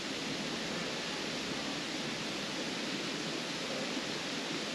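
Steady rushing of a mountain stream, an even hiss that holds level without breaks.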